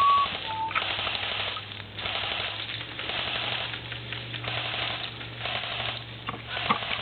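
Airsoft guns firing in repeated bursts of cover fire, heard as clumps of rapid crackling about a second apart.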